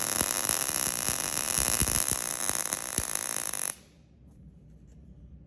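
MIG welding arc crackling and hissing steadily as a bead is laid, with sharp pops scattered through it; the arc stops suddenly about two-thirds of the way through.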